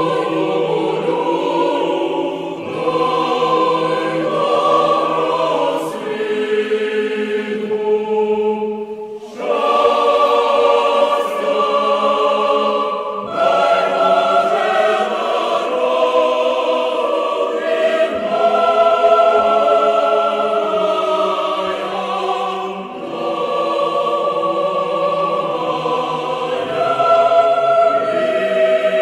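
Slow choral music: a choir holding long chords that change every few seconds.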